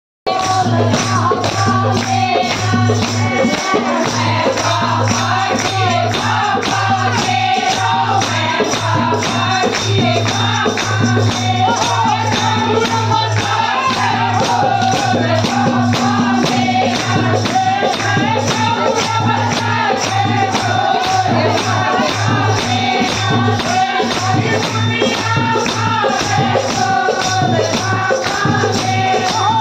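Devotional bhajan music: singing over a fast, steady percussion beat.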